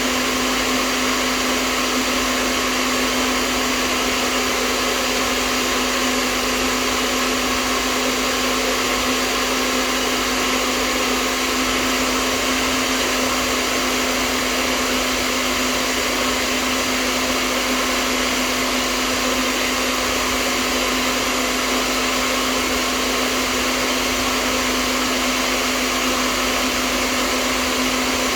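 Hair dryer running continuously: a steady rush of air over a constant motor hum, unchanging throughout.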